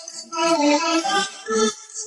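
Background music: a song with a melody of held, pitched notes.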